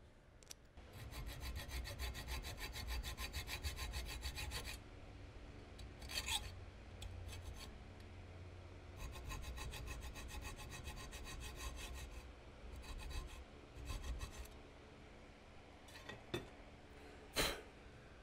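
Hacksaw blade sawing back and forth across the head of a small steel screw held in a vise, cutting a new screwdriver slot in weld-built-up metal. The strokes come in runs, with a few sharp metal clicks near the end, the last of them the loudest.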